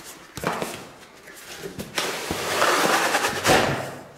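Cardboard graphics-card box being slid out of its printed outer sleeve: a short rustle about half a second in, then a long scraping rub of card on card from about halfway, with a knock near the end.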